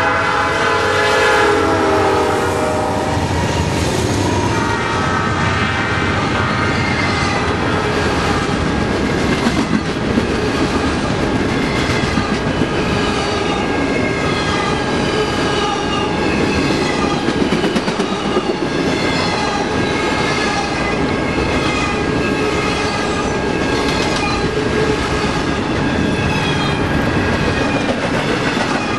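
Norfolk Southern GE C40-9 diesel locomotive passing close by with its horn blowing; the horn chord drops in pitch as it goes past in the first few seconds. Then a long freight of autorack and intermodal cars rolls by, wheels clicking steadily over the rail joints, with thin squealing tones from the wheels.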